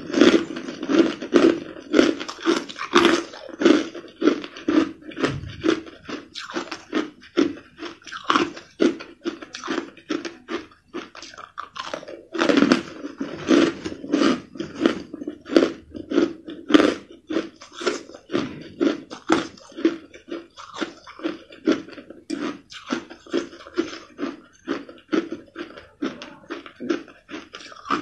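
Crushed ice being bitten and chewed close up: a rapid, steady run of crisp crunches, about two to three a second.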